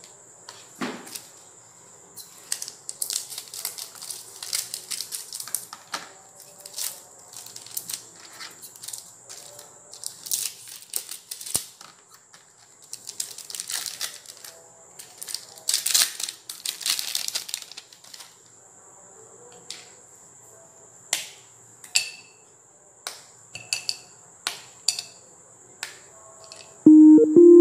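Foil wrapper of a chocolate bar crinkling in bursts as it is peeled away, then a run of short sharp snaps as the bar of dark chocolate is broken into pieces over a bowl. Music starts near the end.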